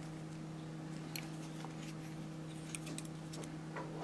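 Small pliers clicking and ticking against steel wire as the wire's bends are squeezed tight, a few sharp light ticks here and there, with a cluster near the end. A steady low hum runs underneath.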